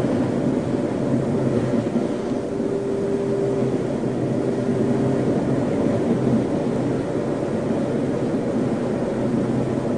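A steady, low rumbling roar of tornado wind, with a faint steady hum from about two and a half to five seconds in.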